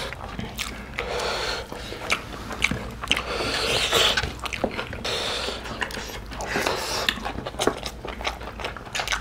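Close-up eating sounds: chewing and lip smacks, with many short, wet clicks, and fingers squishing rice and mutton curry together on a steel plate.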